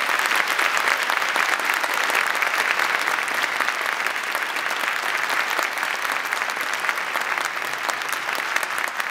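Audience applauding steadily, a dense crackle of many hands clapping, easing off a little near the end.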